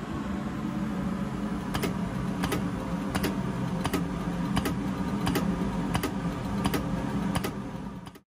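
Marine diesel fuel injector test bench running: a steady low hum with a sharp click about every 0.7 s, cutting off suddenly near the end.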